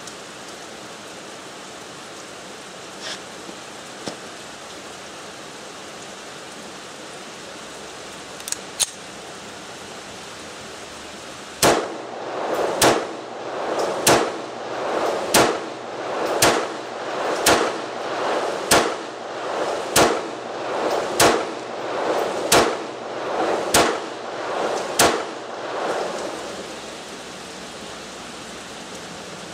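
CZ-82 pistol firing 9x18 Makarov rounds: about a dozen sharp shots at a steady pace of roughly one a second, starting about twelve seconds in, each trailed by a short echo. A few faint clicks come before the shooting, and a steady hiss of rain lies under it all.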